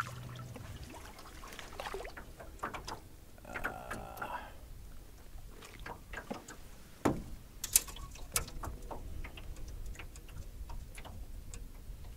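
Handling sounds in a small fishing boat: scattered clicks and knocks with light water sounds, and two sharp clacks about seven and eight seconds in. A low steady hum stops just under a second in.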